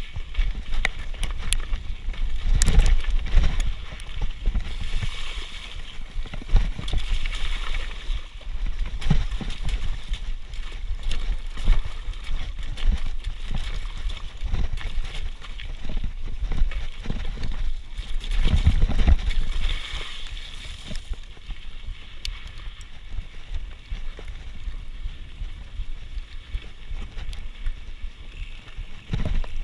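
Mountain bike ridden over a rocky, partly wet trail: the bike rattles and knocks over stones and the tyres crunch on gravel, under a low rumble on the camera microphone. The knocks thin out about twenty seconds in as the bike rolls more smoothly on a dirt track.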